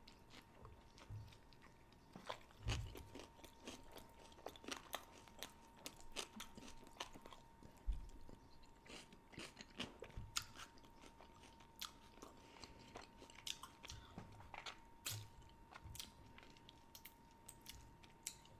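Close-miked chewing of a shredded brisket taco: soft, wet mouth clicks and smacks with occasional low thumps of the jaw, scattered and irregular, over a faint steady high hum.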